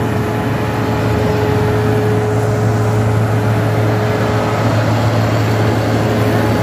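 Volvo wheel loader with a front-mounted snow blower, its diesel engine running loud and steady at close range. A steady whine over the engine drops out about two-thirds of the way through.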